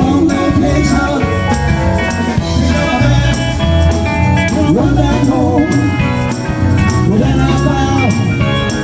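Live blues-rock band playing: a man singing lead into a microphone over electric guitar and a drum kit, with steady drum hits.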